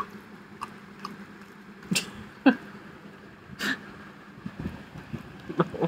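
Close-up sniffing, licking and mouth noises of a Labrador nuzzling a person's face, with scattered clicks and a few short, sharp breathy bursts, the loudest about two and a half seconds in.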